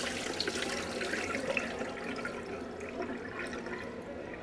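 Water being drained off and poured out, splashing with small drips. The flow eases gradually.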